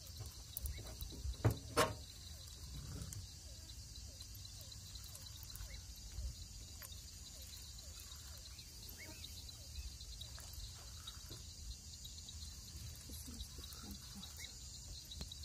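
Night chorus of insects: a steady high-pitched trilling, with faint short falling chirps scattered through it. Two sharp knocks about a second and a half in.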